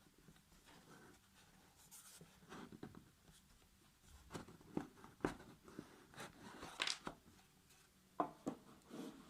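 Handling noise: scattered light taps, clicks and rustles, with a cluster of sharper taps in the middle and another sharp tap near the end.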